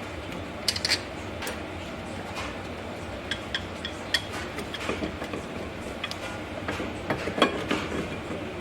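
Irregular small metal clicks and clinks of bolts and hand tools being handled, with a few short ringing pings, as Loctited brake caliper bracket mount bolts are fitted.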